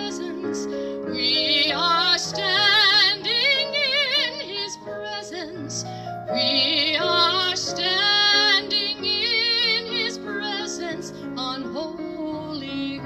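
A woman singing with wide vibrato over a sustained instrumental accompaniment, in long held phrases.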